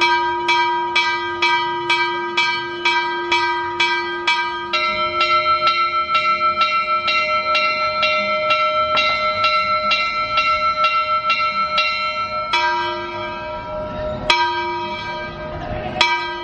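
Church bells ringing in quick, even strokes, about three a second. About five seconds in the ringing moves to a different, higher-sounding bell, and about twelve seconds in it goes back to the first. Two sharp clicks come near the end.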